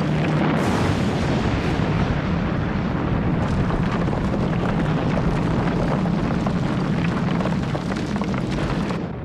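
Sound-effect blast of demolition charges and the rumbling rockslide it sets off: a continuous heavy rumble with fresh crashes about half a second and a second and a half in, dying down just before the end.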